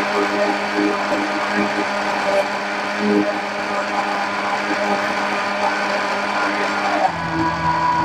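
Electric mixer grinder running steadily, blending banana milkshake with ice. Its tone changes abruptly about seven seconds in.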